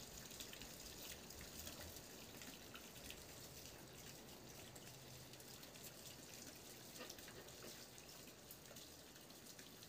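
Near silence: faint steady background hiss with a few soft ticks.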